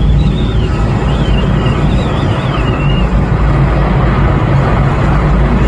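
Airbus A380 jet engines, a loud steady rumble, with strong wind buffeting the microphone. A thin, high, wavering tone runs over it until about three seconds in, then fades.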